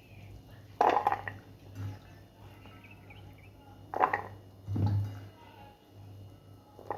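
Soya chunks being washed in a bowl by hand: about four short splashing, handling noises a second or few apart, over a steady low hum.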